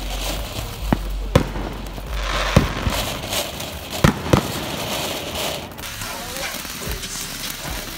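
Ground fountain firework hissing as it sprays sparks, with several sharp pops in the first half.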